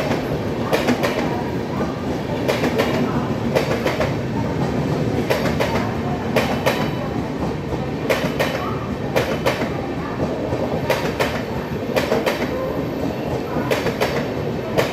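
Duronto Express passenger coaches rolling past, with a steady rumble. The wheels click over the rail joints in quick pairs about every second.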